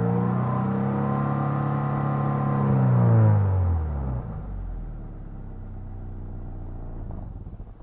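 2015 Subaru BRZ's 2.0-litre flat-four boxer engine heard through its stock exhaust, held at raised revs with a steady drone. About three to four seconds in the revs fall away and it settles to a low, steady idle. The engine is fully warmed up.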